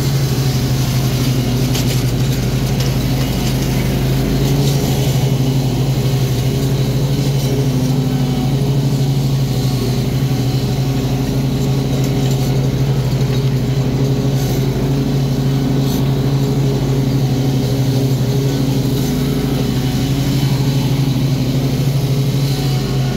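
Commercial riding mower's engine running steadily under load while mowing, a constant low drone with some mechanical rattle.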